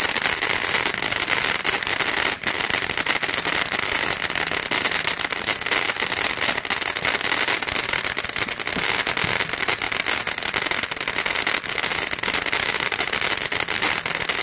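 TNT Tasmanian Cyclone ground fountain firework burning: a steady, loud hiss of spraying sparks dotted with rapid fine crackles.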